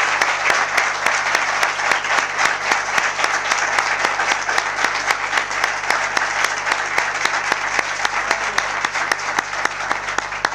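Audience applauding steadily with many hands, easing slightly near the end.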